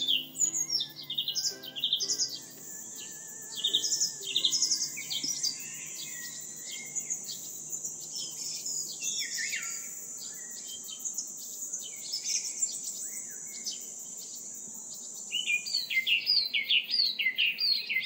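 Many small birds chirping and trilling, with a thin, steady high-pitched whine running under them through most of the stretch and a busy run of rapid chirps near the end. Soft ukulele music fades out in the first few seconds.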